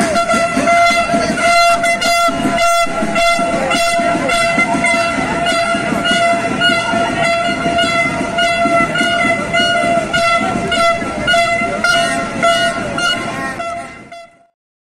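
A horn blowing one long steady note over crowd noise and regular beats about twice a second, fading away just before the sound cuts off near the end.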